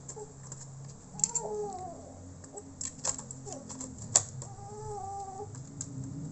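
Sharp, irregular plastic clicks and taps as a laptop's parts are pressed back into place, with a few short chirping calls in the background.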